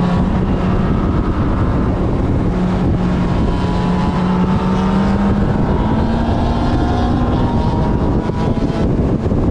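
Motorcycle engine running hard at speed, heard from on the bike, its note climbing slowly as it accelerates, under a constant rush of wind on the microphone.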